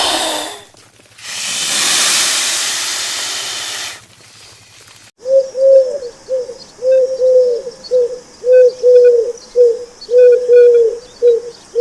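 A steady hiss lasting about three seconds, then from about five seconds in a bird cooing in a regular run of short, arched notes, about two a second, with faint higher chirps over it.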